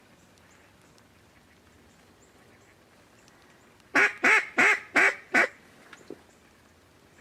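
Mallard duck call blown in a quick series of five loud, evenly spaced quacks, calling to approaching mallards.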